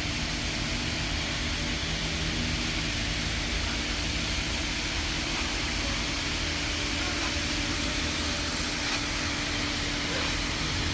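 Steady mechanical hum of a running machine: a constant low drone over an even hiss, unchanging throughout.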